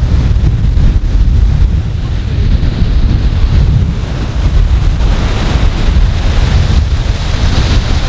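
Strong wind buffeting the microphone over ocean surf breaking and washing up the beach. The hiss of the surf grows louder about five seconds in.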